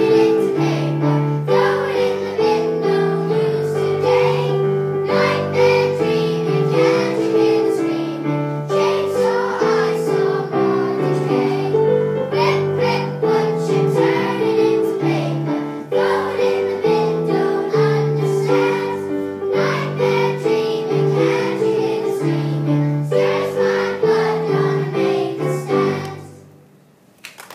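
A group of children singing a song together with instrumental accompaniment; the music fades out near the end.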